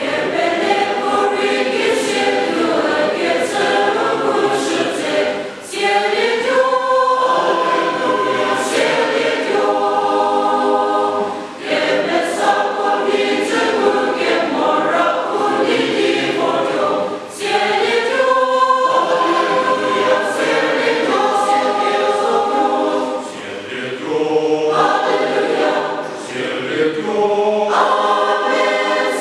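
Large mixed choir of women's and men's voices singing a church song in harmony, starting at the opening and moving through sung phrases with brief breaths between them about every six seconds.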